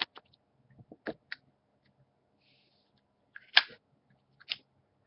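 A few sharp metallic clicks and clacks from a Zippo lighter being handled and lit, with the loudest clack about three and a half seconds in.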